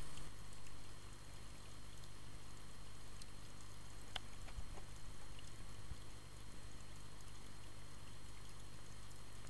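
Muffled underwater ambience picked up by an action camera in a waterproof housing: a steady low hum and even hiss, with a few faint clicks about four seconds in.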